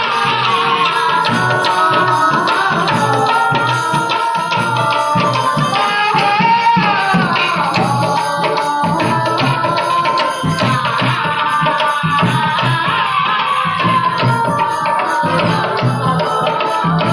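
Indian folk devotional music with tabla keeping a steady rhythm under a wavering melody line.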